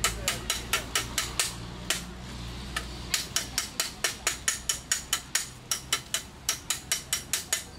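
Flat steel bar tapping quickly and repeatedly on a tinplate biscuit-tin lid, about five light metallic blows a second, to hammer down a metal strip set into the lid for the coin slot. The blows thin out for about a second and a half near the two-second mark.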